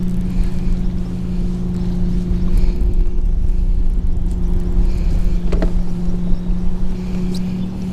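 A steady motor drone at one pitch over a low rumble, with a few short clicks about five and a half seconds in and again near the end.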